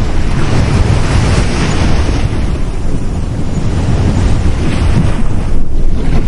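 Sea waves breaking and washing up a beach, with wind buffeting the microphone in a steady low rumble. A wash of surf swells in the first couple of seconds.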